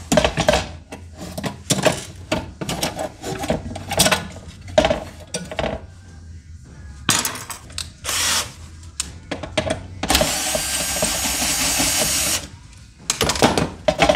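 Knocks and clicks of hand tools prying at a metal-and-plastic inverter housing and its circuit boards, then a cordless drill runs steadily for about two seconds, followed by a few more knocks near the end.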